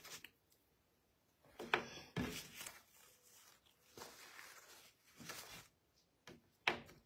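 Quiet, scattered handling sounds at a table: a sheet of paper rustling as it is unfolded and handled, with a few light clicks and knocks in between.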